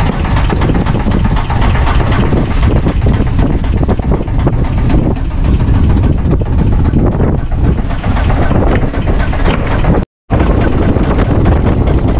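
Strong wind buffeting the microphone over rough, choppy sea water, with a heavy low rumble. It drops out completely for a moment about ten seconds in.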